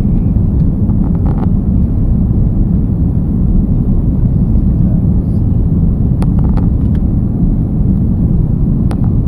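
Steady, loud low rumble of an airliner's engines and airflow heard inside the passenger cabin during the climb after takeoff. A few brief clicks come around a second in and in the second half.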